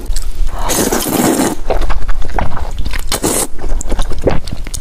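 Close-miked slurping of hot and sour sweet-potato starch noodles out of broth, with a long slurp about a second in and a shorter one around three seconds, and wet chewing clicks in between.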